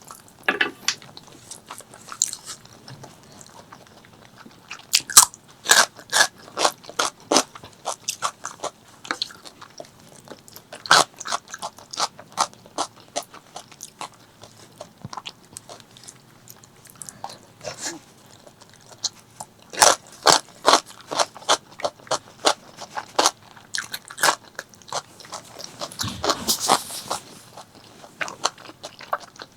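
Close-miked mukbang eating of spicy pork leg curry with rice: biting and chewing, with a dense, irregular run of sharp, crisp mouth clicks and crunches, and a louder noisy burst near the end.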